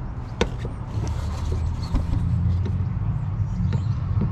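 Rubber heater hose and metal hose clamps being handled and fitted in line with a heater hose restrictor, giving a few sharp clicks, the loudest about half a second in, over a steady low rumble.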